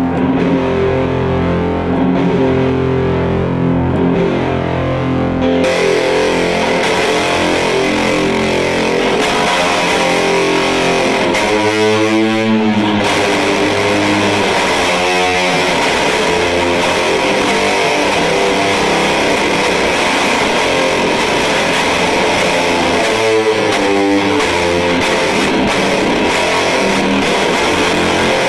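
Electric guitar played through an EarthQuaker Devices Fuzz Master General fuzz pedal into a Fender Deluxe Reverb amp, giving a thick, heavily distorted fuzz tone. About six seconds in, the tone turns much brighter and fizzier.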